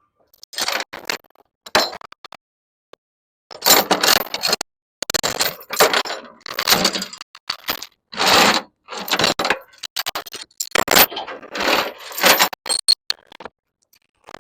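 Metal tie-down chains rattling and clinking in a dozen or so irregular bursts as they are handled.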